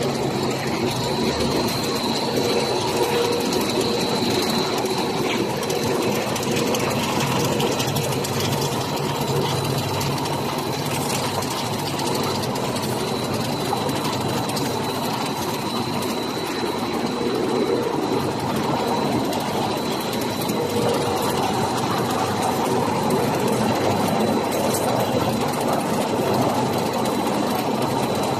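Pet food production line machinery running steadily: a dense, even mechanical clatter with a thin high whine held over it.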